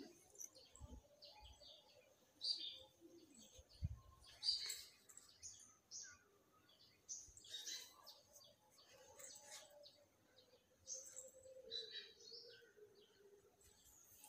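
Faint birds chirping, with short high calls coming on and off.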